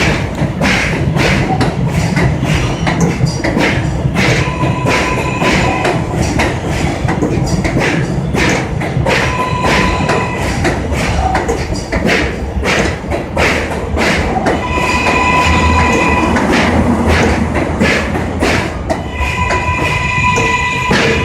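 New York City Subway R188 train running through, a loud steady rumble with wheels clattering over the rail joints. A high ringing squeal rises and fades four times.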